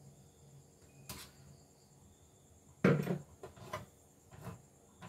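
Knocks and clicks from hands working on an opened embroidery machine: a light click about a second in, a loud knock near the three-second mark, then a few lighter knocks.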